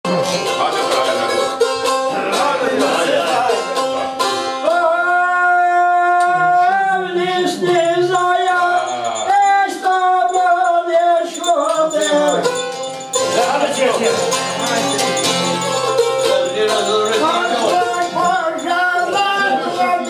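Albanian folk song with a plucked çifteli, a two-stringed long-necked lute, played alone at first. A little over four seconds in, a man's voice joins, singing long, drawn-out wavering phrases.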